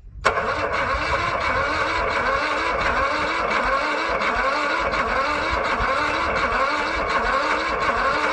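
A cold lawn mower engine cranking on its electric starter without firing. It turns over slowly, with an even beat of about two compression strokes a second. The cranking is "pretty slow", which the owner suspects leaves it short of spark.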